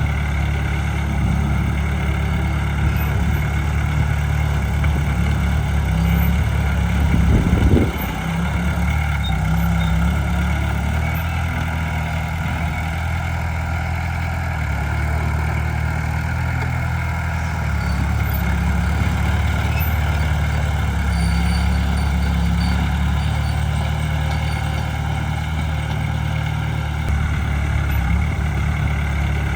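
Heavy diesel engines of earthmoving machinery running steadily at low revs. About seven and a half seconds in there is a short, louder swell that cuts off sharply.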